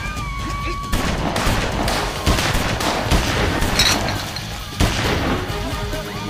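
Film gunfire: a string of gunshots at irregular intervals, with bullets striking a table of food and drinks.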